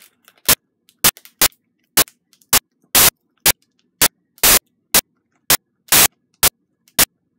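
Loud, sharp clicks, evenly spaced about twice a second, with near silence between them.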